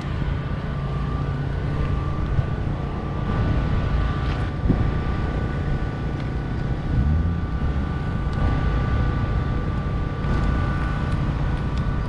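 Low rumble of car engines running, with one engine's pitch rising briefly about seven seconds in.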